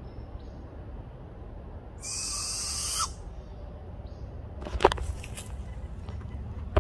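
Barred owl giving one harsh, hissing warning screech about a second long, about two seconds in. A few sharp knocks of camera-handling noise follow a couple of seconds later.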